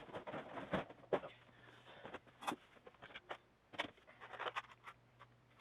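Irregular light clicks, rattles and scrapes of small hard parts being handled, as of rummaging for a crimp-on quick-connect terminal among small electrical parts.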